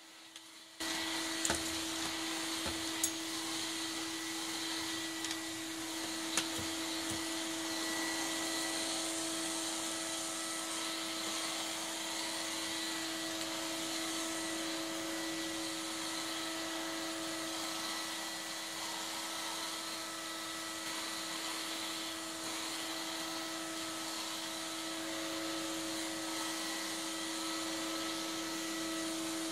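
Vacuum cleaner running steadily over carpet with a constant motor whine, cutting in abruptly about a second in. A few sharp clicks in the first several seconds as coins and debris are sucked up the wand.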